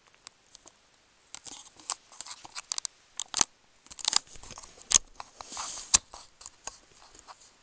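Stiff plastic blister packaging being handled and crinkled, with irregular crunching and sharp clicks and knocks, the loudest a few single snaps about halfway through and near the end.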